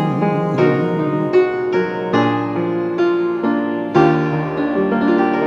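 Solo piano playing the instrumental close of a slow song, chords with a melody line over them, changing every half second or so, with a louder chord struck about four seconds in.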